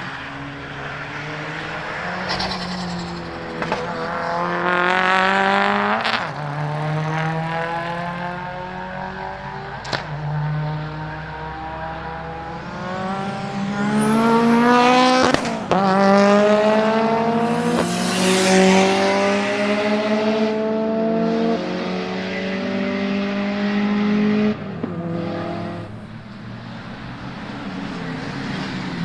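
Rally-style car engines accelerating hard on a race track, rising in pitch through several gears and dropping at each shift, with sharp cracks in between.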